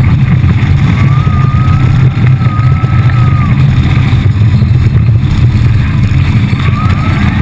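Baja Hammer speedboat's inboard engine running at high speed, a loud, steady low drone with the rush of wind and water over it. A thin whine wavers slightly between about one and three and a half seconds in.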